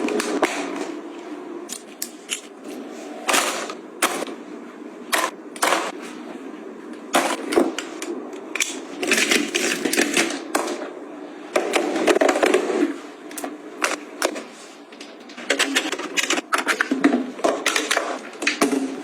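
Small hard objects being handled and set down: a run of irregular sharp clicks and taps, with denser clattering stretches partway through and near the end.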